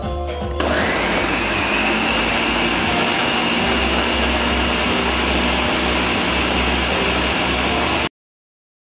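Countertop blender motor starting about half a second in, its whine rising and settling into a steady high-pitched run as it purées leafy greens, cucumber and apple with water. It cuts off suddenly near the end.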